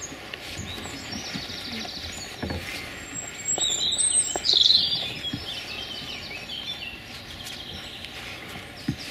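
Songbirds singing outdoors, one bird's song loudest with quick rising and falling notes around the middle. There are two soft thumps, one about two and a half seconds in and one near the end.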